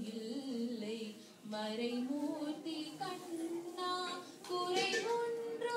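A woman and young girls singing a Tamil devotional song, a slow, gliding melodic line with a short break about a second and a half in.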